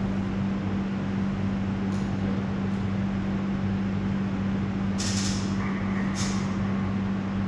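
Steady low electrical hum with a strong even pitch, the room's background tone. Two brief hissing noises come about five and six seconds in.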